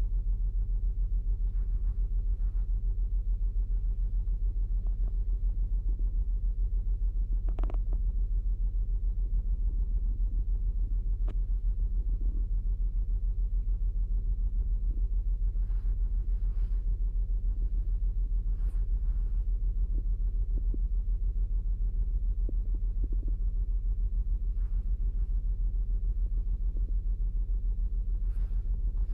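2008 Saturn Outlook's 3.6-litre V6 idling steadily with a low rumble, from a cold start with a cylinder 1 misfire (code P0301), and a few faint clicks.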